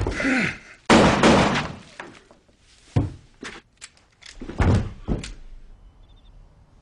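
Fight sound effects in a film: a sharp hit and a strained voice at the start, a loud crash about a second in, then a run of heavy thuds and blows between about three and five seconds as a man on the floor is struck.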